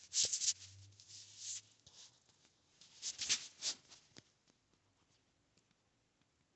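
Camera handling noise: a few short bursts of rustling and light knocks as the camera is moved over a fleece blanket and set down, dying away after about four seconds.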